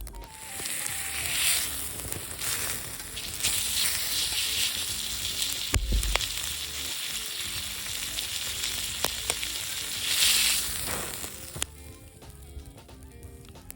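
Food sizzling and frying in a hot pan, a steady hiss that swells and eases, with a few sharp pops and a low thump about six seconds in; the sizzle stops near the end. Soft background music plays underneath.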